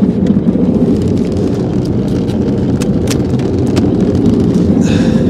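Jet boat engine idling, a steady low rumble, with a few sharp clicks of handling in the boat.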